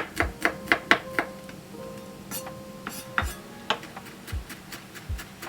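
Kitchen knife mincing garlic cloves on a cutting board: quick chops at about three a second for the first second or so, then a few scattered knocks and taps, over light background music.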